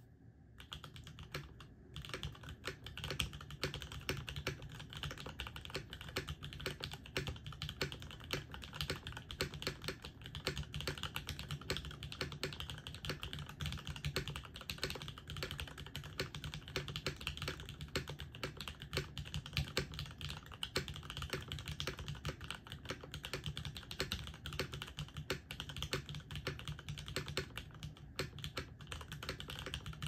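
Fast, continuous typing on an LZ REs TKL custom mechanical keyboard built with a top-mounted aluminium plate, a brass weight, and lubed, filmed vintage WYSE Cherry MX Black linear switches under GMK keycaps. The keystrokes run together into a dense, even clatter, starting about half a second in.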